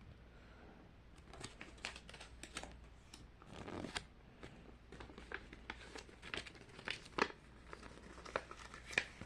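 A folded paper checklist being unfolded and handled: quiet, irregular crinkling and rustling of paper.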